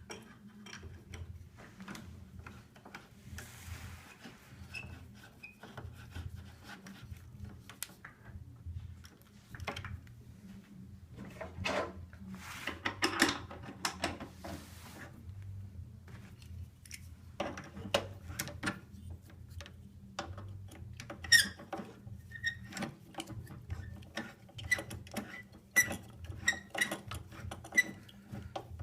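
Scattered clicks and knocks with stretches of rustling and scraping as the parts of an Aeron office chair are handled and fitted back together, with short high squeaks repeating in the second half.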